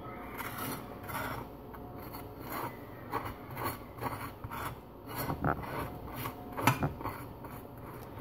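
A table knife spreading mayonnaise over a slice of crisp toasted bread, the blade rasping across the toast in repeated, irregular strokes.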